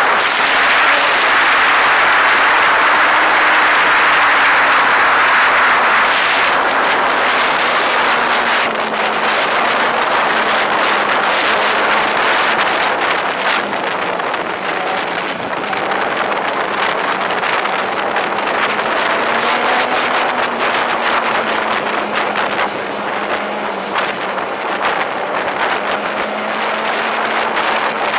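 A vehicle engine running at a steady cruising speed, its pitch sinking slowly over the first several seconds and rising again briefly later, with wind rushing over the microphone, heaviest in the first few seconds.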